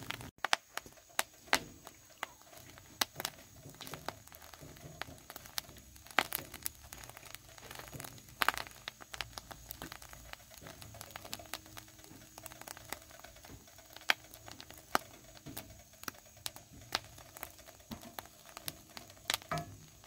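Crumbled egg yolks crackling and popping with irregular sharp pops in a hot cast-iron skillet, stirred now and then with a wooden spoon. This is the yolks cooking down and drying out before they begin to smoke and char to give up their oil.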